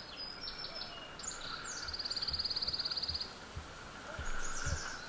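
Small songbirds singing: several short high chirps, then a fast, even trill about two seconds in that lasts about a second, and another short song near the end. A few low, dull thumps sound underneath.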